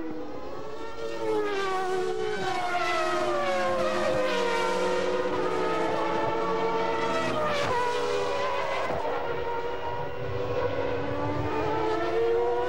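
Formula One race car engines at high revs: a high whine from several tones that climbs and falls with gear changes and throttle. The pitch dips sharply about seven and a half seconds in, as a car passes close.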